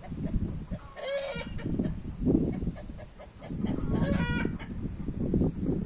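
Strong wind gusting against the microphone in low, buffeting rumbles, with a chicken calling twice in short, loud calls, about a second in and again about four seconds in.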